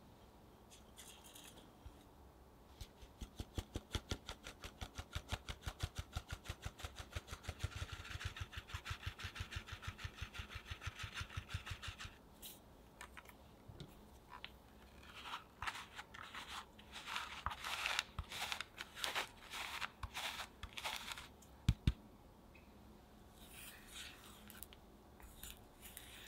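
A fine mesh sieve being tapped steadily, about five or six taps a second, to sift cake flour, almond flour and cocoa powder into a glass bowl. This gives way to irregular rustling shakes of the sieve and a single sharp knock. Near the end a spatula scrapes against the bowl as the dry ingredients are folded in.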